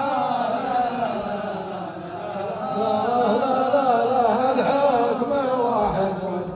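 A voice chanting an Arabic poem in a long, wavering melody, drawn out without a break.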